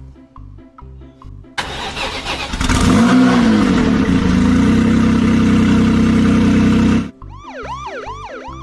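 Over light plinking background music, a car engine starts suddenly about a second and a half in, revs up and runs steadily at a loud level, then cuts off abruptly about seven seconds in. A wailing siren with quick rising-and-falling sweeps follows near the end.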